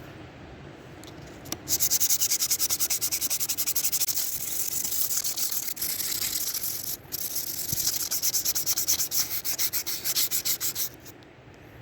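Hand sanding during a hatchet restoration: quick, even back-and-forth strokes of an abrasive rubbing against the work, about four or five a second. It starts a couple of seconds in, pauses briefly about seven seconds in, and stops near the end.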